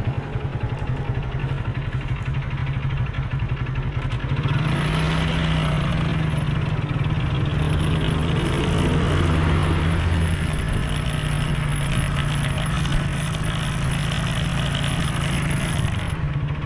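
Motorcycle engine running steadily as it is ridden, with road and traffic noise; it grows louder about four seconds in.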